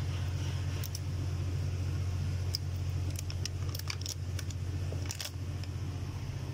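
Steady low hum of running machinery or electrical equipment, with a scatter of light clicks and jingles in the middle stretch, from about two and a half to five seconds in.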